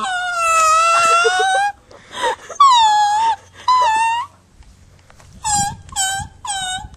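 Blade of grass stretched between the thumbs and blown like a reed, giving loud, shrill squeals. First comes one long wavering squeal, then about six shorter squawks in two quick runs.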